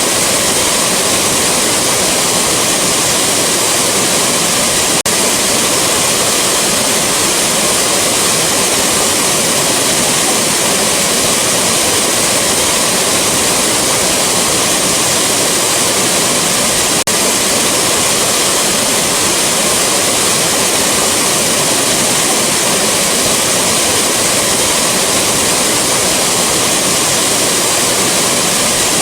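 Rushing waterfall: a steady, dense roar of falling water, broken twice by a split-second dip in level.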